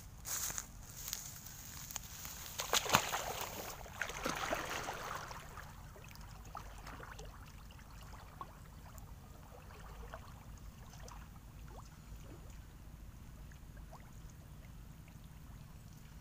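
Water sloshing and splashing, loudest about three seconds in and dying down after about five seconds into a low steady background with faint scattered ticks.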